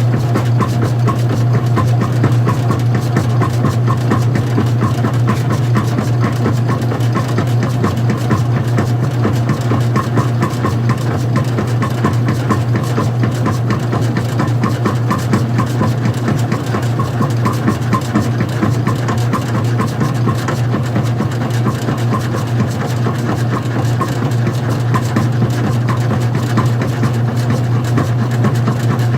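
Old-style front-loading washing machine running: a steady, unchanging low mechanical hum with a fast, even flutter over it.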